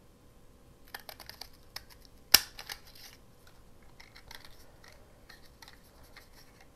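Handheld plastic craft paper punch snapping through paper: a few small clicks and paper rustles as it is pressed, then one sharp, loud snap as it cuts, followed by faint handling of the plastic punch.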